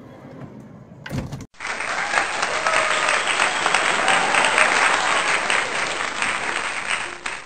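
Crowd applauding, starting abruptly about a second and a half in and cutting off suddenly at the end, after a low thump.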